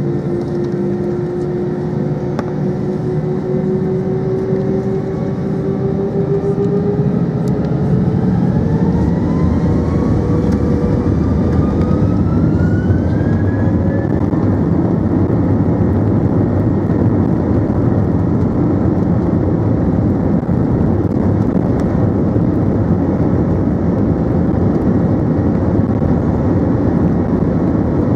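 Airbus A321-200's jet engines spooling up for takeoff, heard from inside the cabin. A steady whine rises in pitch over several seconds, and about eight seconds in a loud, even roar builds and holds as the takeoff roll gets under way.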